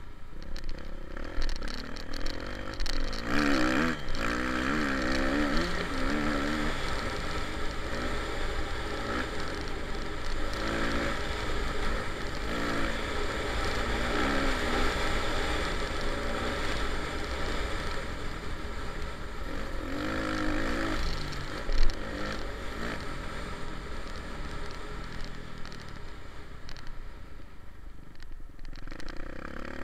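Kawasaki KX450 dirt bike's single-cylinder four-stroke engine running under way, its revs rising and falling over and over as it is ridden. One sharp knock about two-thirds of the way through.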